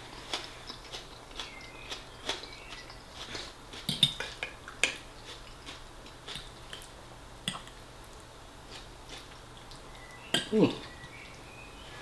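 Close-miked eating: chewing and small mouth clicks as a forkful of fisherman's pie and salad is eaten, with a steel fork tapping and scraping on a ceramic plate. A few sharper clicks come around four to five seconds in, and a louder short sound with a falling low tone comes near the end.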